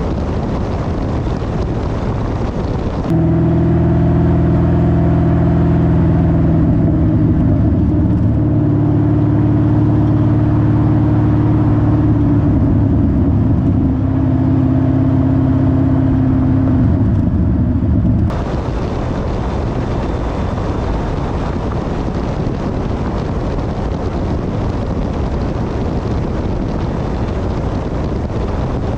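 Wind rushing over a camera on the roof of a moving car; about three seconds in it cuts sharply to a Corvette's V8 exhaust droning steadily under way, its pitch shifting a few times. Some fifteen seconds later it cuts back to the wind noise.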